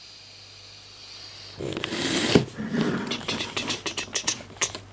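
Spirit box, a "shack hack" modified radio, switched on. It gives a steady radio static hiss, then about a second and a half in it starts sweeping through stations, a louder choppy run of chopped static and broken radio fragments.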